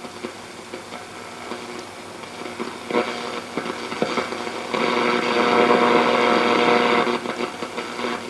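1937 Sears Silvertone tube radio's speaker giving out a steady, many-toned hum with scattered clicks and crackle while tuned on the AM band, growing louder and jumping up about two-thirds of the way in. It is interference from a nearby Wi-Fi garage door opener.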